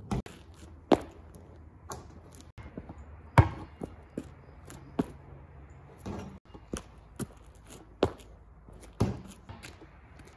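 Footsteps of gum rubber sneaker soles on asphalt, heard close up: about nine uneven steps and scuffs, the loudest about a third of the way in.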